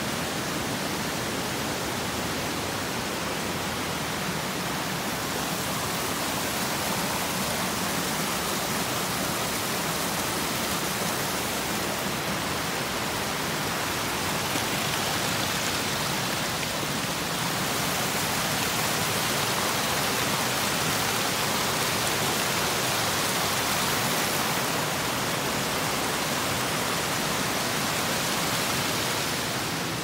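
Steady rush of falling water, an even roar with no breaks.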